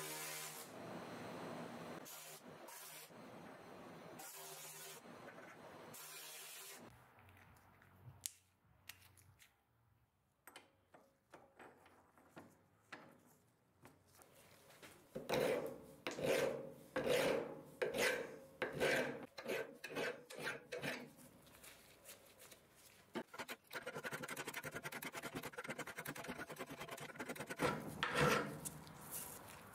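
A steady hiss from a torch flame on a steel plate for the first several seconds. Later, a steel flange clamped in a bench vise is hand-filed: a run of loud strokes about one a second in the middle, then steadier rubbing near the end.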